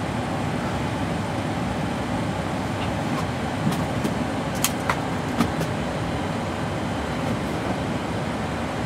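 Steady rush of air and equipment noise on the flight deck of a parked Boeing 747-400, typical of its air conditioning and ventilation running before departure, with a few sharp clicks about halfway through.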